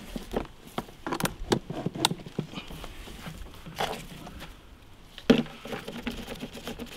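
Plastic clicks and rattles as a black nozzle fitting is handled and screwed onto a white plastic detergent bottle for a pressure washer, with a quick run of clicks a second or two in and one sharp, loudest click a little past five seconds in.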